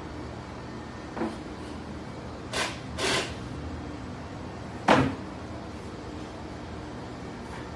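Large ash extension table being slid along its runners: a light knock about a second in, two short sliding sounds a little later, then a louder knock about five seconds in, over a steady shop hum.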